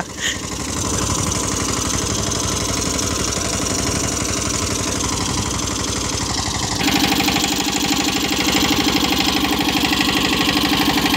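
Captain 200 DI mini tractor's diesel engine running steadily as it pulls a cultivator through tilled soil. About seven seconds in it becomes louder and closer, with a fast, even engine beat.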